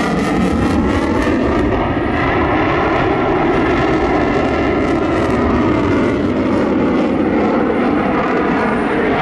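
Jet fighter flying a display overhead: a loud, steady jet roar with a whine that falls in pitch over the first couple of seconds.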